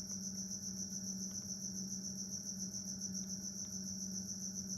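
Crickets trilling steadily in a fast, even pulse, over a low steady hum.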